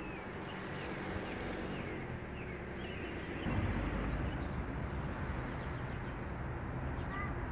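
Outdoor ambience of small birds chirping among the trees, with a low rumble that swells about halfway through and carries on.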